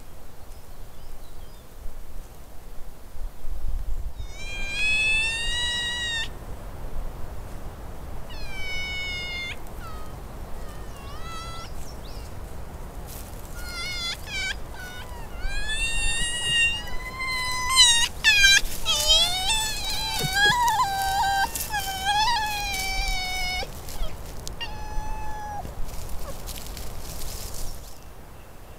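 Red fox giving a series of high, meow-like whining calls that bend up and down in pitch, in short bouts starting about four seconds in and coming thickest in the middle, then stopping a few seconds before the end.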